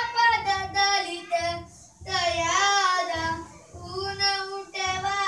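A young boy singing in a high, clear voice, holding long notes in phrases with short pauses between them.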